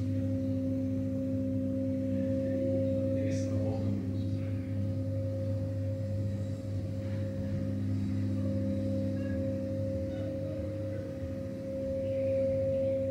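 Small in-home passenger lift running as the car travels up the shaft: its drive motor gives a steady low hum with a steady whine over it.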